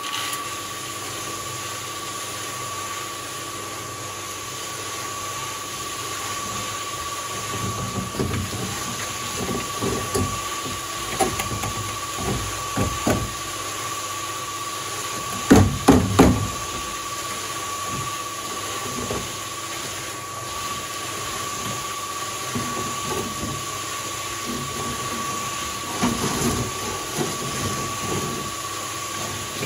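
Electric cement mixer running, its turning drum of wet concrete giving a steady rumble with a constant motor whine. Knocks and scraping clatter join in as the mix is tipped out into a steel wheelbarrow, with a cluster of heavy bangs about halfway through.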